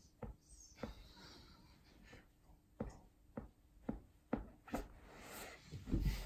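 Globe skate sneakers shifting on a bed: scattered soft knocks as the shoes bump and rub against each other, with bedsheet and denim rustling between them. A heavier low thump near the end as the feet are set down on the mattress.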